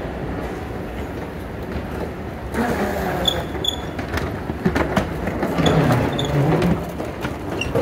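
Airport escalator running with a steady low rumble. About three seconds in come two short high beeps, and about four to five seconds in a suitcase's wheels clack over the comb plate at the foot of the escalator.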